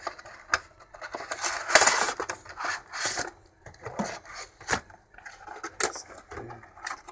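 Clear plastic blister tray of a boxed action figure being slid out of its cardboard box and handled: crinkling plastic and cardboard scraping with sharp clicks, the loudest rustle about two seconds in.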